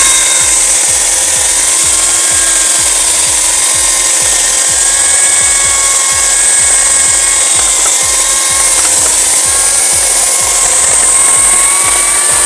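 Oregon CS1500 15-amp corded electric chainsaw running at full speed with its chain cutting up through a log from underneath: a loud, steady whine over a high hiss.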